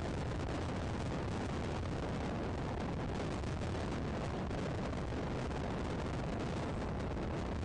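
Steady low rumble of wind buffeting the nest camera's outdoor microphone, with no calls or other distinct sounds standing out.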